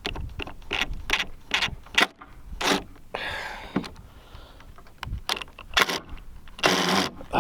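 Irregular metallic clinks and knocks of tools working on rusted screws in old wooden playset framing, with a louder scraping burst near the end.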